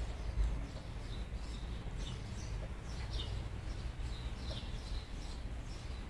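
Small songbirds chirping, scattered short high calls about two a second, over a steady low rumble that swells briefly just after the start.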